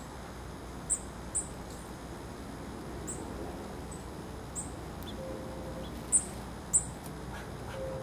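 Small songbirds giving short, very high-pitched chip calls, about six in all, the loudest pair coming about six seconds in, over a steady low background rumble.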